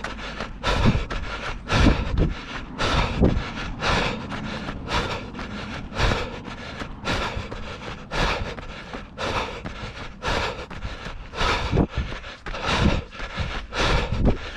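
A runner's footfalls on a dirt trail, an even beat of about two steps a second, with wind noise on the microphone.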